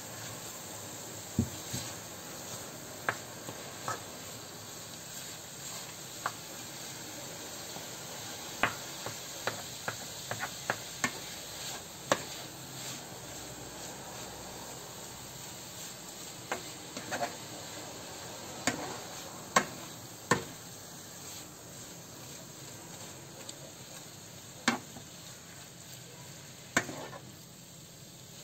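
Minced meat and onions frying in oil in a stainless pan with a steady sizzle, while a plastic spoon breaks up and stirs the meat, knocking and scraping against the pan in frequent sharp taps.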